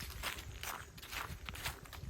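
Footsteps crunching through dry fallen autumn leaves on a forest floor, several steps in a row at a walking pace.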